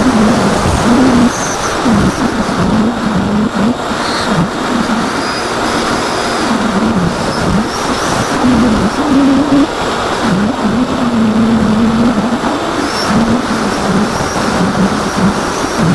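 Electric motor and propeller of an AXN foam FPV plane, picked up by its onboard camera: a whine that keeps rising and falling in pitch with the throttle, over a constant rush of wind noise.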